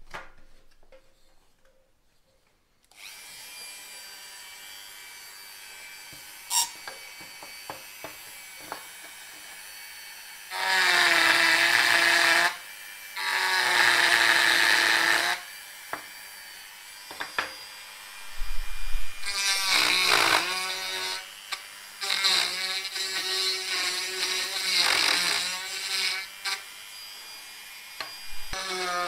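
Handheld Dremel rotary tool switched on about three seconds in and running with a steady high-speed whine, then grinding into a small block of wood in several louder bursts of a couple of seconds each.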